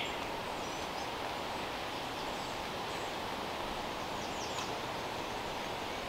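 Steady hiss of woodland ambience with a few faint, high-pitched bird chirps, most of them around four and a half seconds in.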